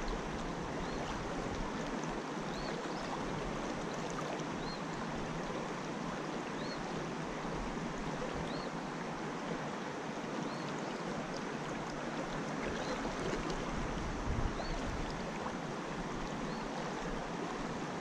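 Mountain trout creek water rippling and rushing steadily, with a faint short high chirp repeating about once a second.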